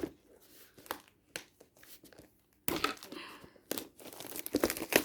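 Plastic wrapping on a box being cut with a knife and torn off. There are a few light clicks at first, then crinkling and tearing from about three seconds in.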